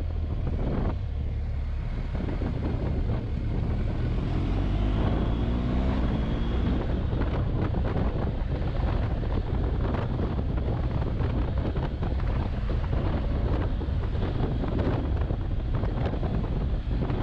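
Wind buffeting the microphone of a riding adventure motorcycle, over the engine and road noise. The engine note rises and falls briefly about four to six seconds in.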